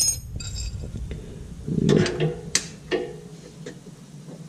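Metal clinks and a few sharp clicks of a hand tool, a cut-down 10 mm hex socket, working the drain plug on a transmission pan. There is a ringing clink at the start, then several separate clicks around the middle.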